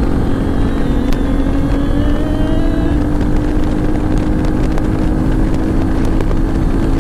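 2009 Yamaha FZ-S's 153 cc single-cylinder engine pulling hard as the motorcycle speeds up, its pitch rising over the first few seconds and then holding steady, under heavy wind and road noise.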